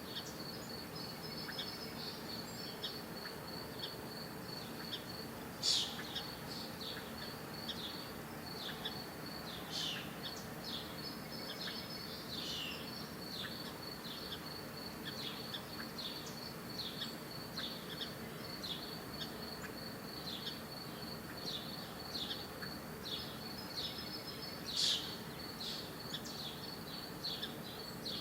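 A steady, finely pulsing high insect trill with birds chirping over it: many short, quick downward chirps, and two louder calls about six seconds in and near the end.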